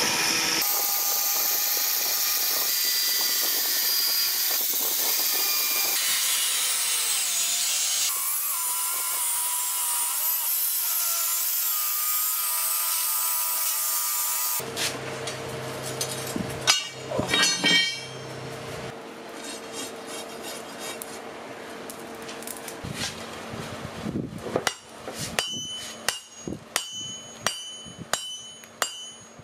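Electric angle grinder cutting a rusty steel bar: a steady whine with gritty grinding, lasting about the first half. After that come a few scattered knocks and a steady hum, then a hammer striking hot steel on an anvil, about two ringing blows a second.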